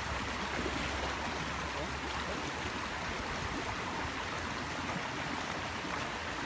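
Shallow stream running over stones: a steady rush of flowing water.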